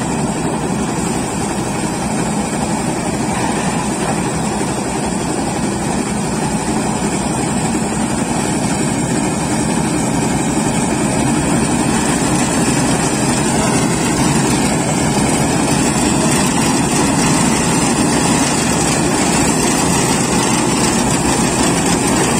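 Claas combine harvester running as it cuts a dry crop. Its engine and header make a steady, loud mechanical noise, heard up close.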